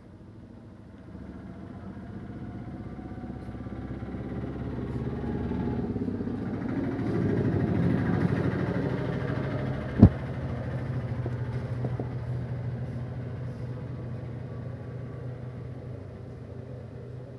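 A motor vehicle engine running, growing louder over the first half and then easing off to a steady hum, with one sharp knock about ten seconds in.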